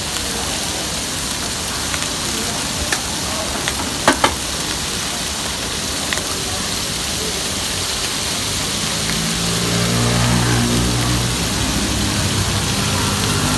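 Whole squid sizzling steadily on a hot flat-top griddle, with a few sharp clicks about four seconds in from the metal tongs turning them. Music comes in over the last few seconds.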